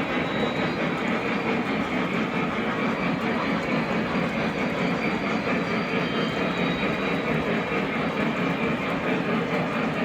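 O gauge model train running on the layout: a steady rolling noise of wheels on the track and the locomotive running, without a break.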